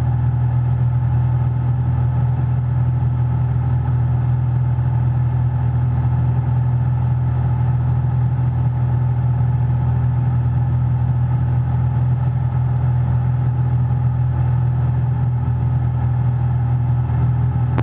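Steady drone of a 1967 Cessna 172H's six-cylinder Continental O-300 engine and propeller in level flight, heard from inside the cockpit.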